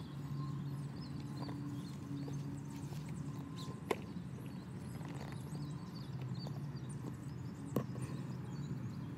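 Two sharp plastic clicks, one about four seconds in and another near the end, as hollow plastic Easter eggs are dropped into a cardboard box, over a steady low hum and faint high chirps.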